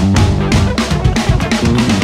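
Funk jam: a drum kit playing a busy, even groove of kick, snare and cymbal hits, with an electric lead guitar over a looped riff holding low sustained notes.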